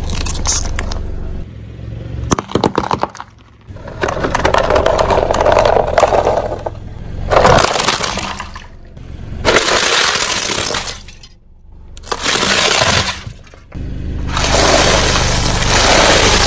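A car tyre rolling over objects and crushing them: a run of sharp cracks about two seconds in, then several longer crunching stretches broken by short, abrupt gaps.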